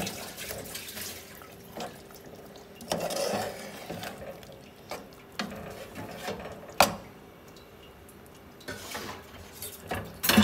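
Steel spoon stir-frying mutton and potatoes in thick masala in a steel pot: wet stirring through the gravy, with several sharp clinks of the spoon against the pot, the loudest about two-thirds in.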